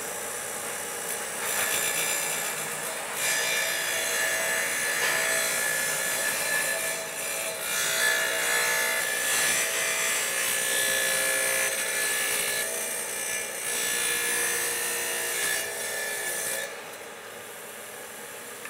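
MK wet tile saw's diamond blade cutting through paper-faced glass mosaic tile under water spray: a gritty grinding sound over the motor's steady tones. It gets noticeably quieter near the end.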